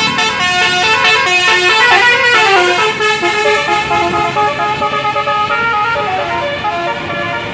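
Musical 'telolet' multi-trumpet air horn on a medium tour bus, sounding loudly and without a break for a long stretch. It plays a melody of stepped notes, several pitches together, with a brief sliding drop about two seconds in.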